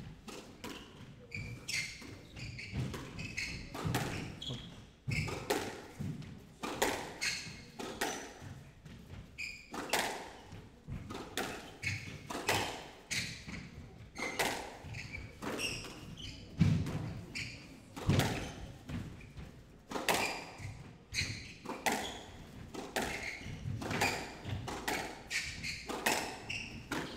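Squash ball struck back and forth in a long rally: a steady run of sharp smacks of racket on ball and ball on the walls, about one or two a second.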